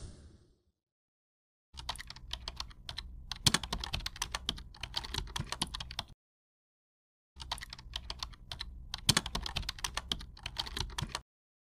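Computer keyboard typing sound effect: rapid keystrokes in two runs, the first about four and a half seconds long, then a pause of about a second, then a second run of about four seconds.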